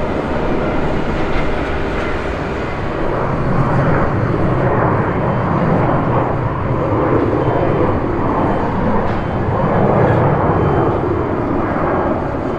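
Jet airliner engines running at takeoff thrust: a steady rushing rumble that grows louder about four seconds in and holds.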